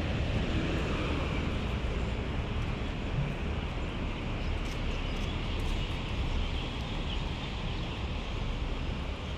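Steady road traffic noise from the highway beside the park: a constant low rumble with hiss.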